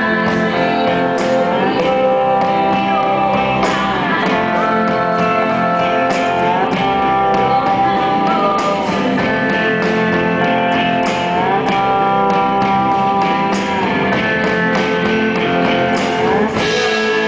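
Live band music: an electric guitar playing with long held notes that slide between pitches every couple of seconds, and a woman singing at times.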